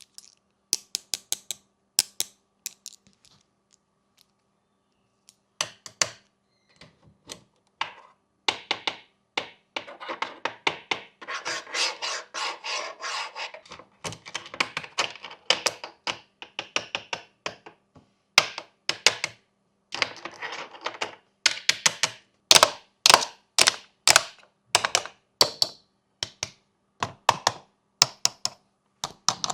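Hands working the buttons, switches and textures of a DIY fidget board: irregular sharp clicks and taps, with a few seconds of continuous rubbing about a third of the way in and a run of louder clicks in the second half.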